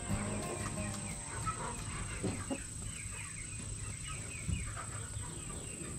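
Backyard chickens, a flock of chocolate silver laced Orpingtons and Rhode Island Whites, clucking and giving many short, high peeps throughout, with a few soft knocks about two and four and a half seconds in.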